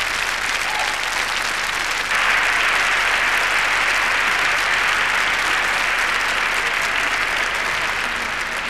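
Large audience applauding, stepping up in loudness about two seconds in and easing off slowly near the end.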